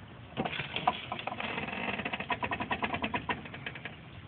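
Car jack being cranked down to lower the car, a rapid, even run of mechanical clicks from about a second in.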